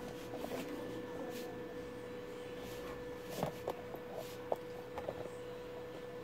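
A steady, faint, high-pitched tone, with a handful of light clicks and taps from a hand handling wires on a CRT TV circuit board, most of them about halfway through.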